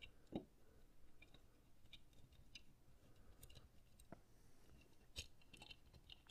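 Faint, scattered small clicks and taps of a plastic game controller shell being handled while its screws are taken out with a small screwdriver, with a soft thump about half a second in.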